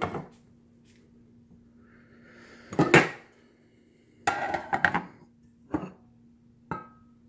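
Pots, pans and glass lids being handled and set down: a few separate knocks and clinks, the loudest about three seconds in and a quick cluster a little later, the last one ringing briefly. A faint steady hum runs underneath.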